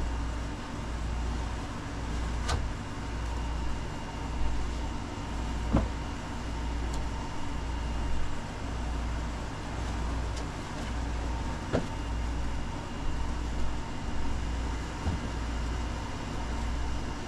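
Steady low machine hum with a slow throb about once a second, and a few sharp knocks and ticks from the bed's foam and frame pieces being handled.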